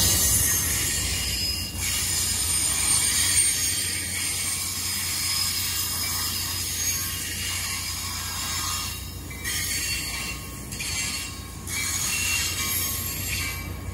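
ACE commuter train's bilevel passenger cars rolling past on steel rails, a steady rumble under a thin, high squeal from the wheels, with a few clacks over rail joints about two-thirds of the way through.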